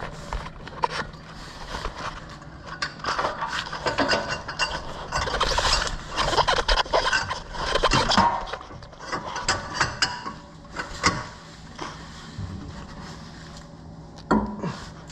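Hand tools and metal suspension parts being worked on a car's rear suspension during a lowering-spring swap: repeated scraping and rubbing with many sharp clicks and knocks, busiest in the middle.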